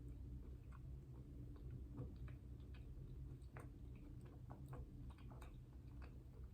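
Close-miked chewing of dessert, with soft, irregular wet mouth clicks several times a second over a steady low hum.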